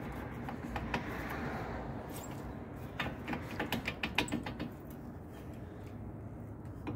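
Front brake caliper of a 2018 Kia Forte being worked off the rotor by hand: metal clicks and clinks from the caliper, pads and spring clips, bunched in a quick run of clicks about three to four and a half seconds in. A steady low hum runs underneath.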